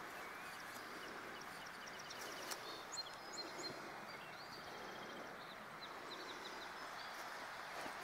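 Steady rush of running stream water, with a bird giving a quick series of short high chirps about three seconds in.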